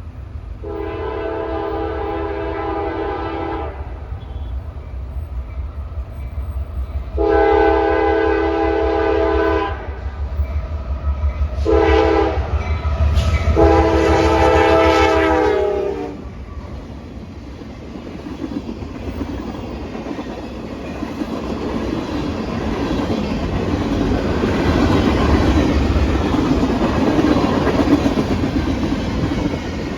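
Freight train led by a GE AC4400CW diesel locomotive sounding its horn in the grade-crossing pattern: long, long, short, long, the last blast dropping in pitch as the locomotive passes. A low engine rumble runs underneath, and then the train's cars roll by with rising rumble and clickety-clack.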